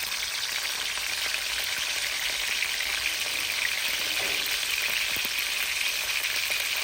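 Fish frying in hot oil in a pan: a steady, dense sizzle and crackle that builds slightly over the few seconds.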